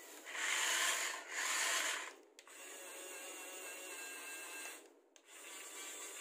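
Plastic-geared electric motors of a Huina 1567 1:24 RC wheel loader. The drive motor runs in two short loud spurts, then a quieter, steadier gear whine follows as the lift arm raises the bucket. It breaks off briefly about five seconds in and starts again.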